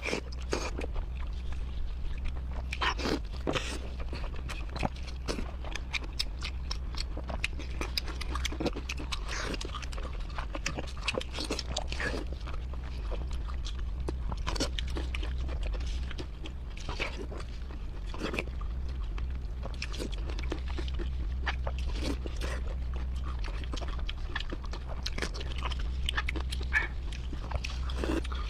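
Close-up eating sounds of a person chewing and biting braised pork: wet, irregular mouth clicks and smacks, over a steady low hum.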